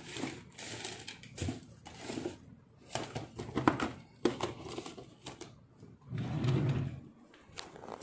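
Rustling and light clicks and knocks of small things being handled and rummaged through, with a brief low murmur of the voice about six seconds in.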